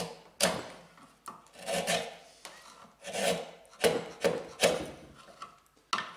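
Hand paring with a sharp woodworking chisel pushed through wood: a series of short slicing strokes, each a brief scraping swish with a sharp start, about seven of them, three in quick succession in the middle.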